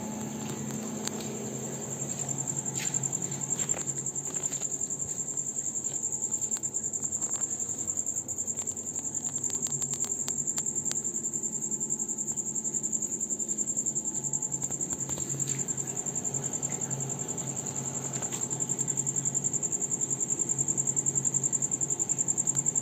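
Cashew humidification chamber running: a steady low machine hum with a shrill, constant high-pitched tone over it and scattered light clicks.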